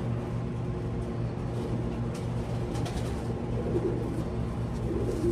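Racing pigeons cooing in a loft, a few soft low coos in the second half, over a steady low hum.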